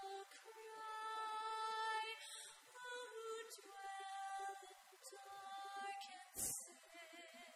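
A woman singing slowly with long held notes, accompanied on piano. A short pop about six and a half seconds in.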